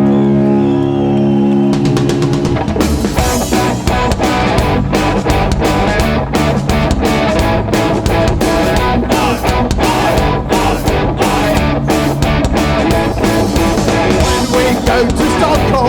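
Live oi-punk band playing an instrumental passage. A held guitar chord rings at first, then about two seconds in the drums and full band come in on a fast, steady beat.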